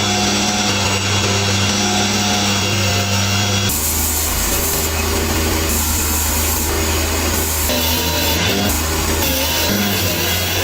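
Metalworking power tool in a workshop, with a steady motor hum. About four seconds in, a harsher grinding or sanding hiss joins it.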